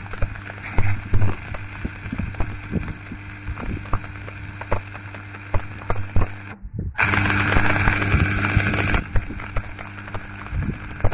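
Stick (electrode) arc welding on steel: the arc crackles and spits over a steady low hum. About two-thirds of the way through, the sound drops out for a moment, then the arc runs as a louder, steadier hiss for about two seconds before it goes back to crackling.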